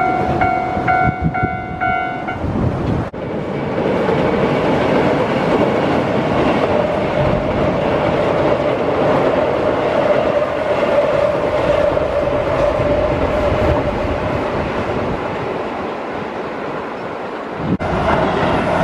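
Keihan electric train running across a steel railway bridge: a loud, steady rumbling roar with a droning band in it. Before a sudden cut about three seconds in, a pulsing signal tone sounds repeatedly over train noise.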